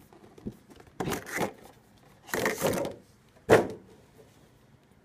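Cardboard retail box being handled and opened: the inner box slid out of its printed sleeve and its lid lifted, in three short bursts of cardboard rubbing and knocking. The last, a sharp knock about three and a half seconds in, is the loudest.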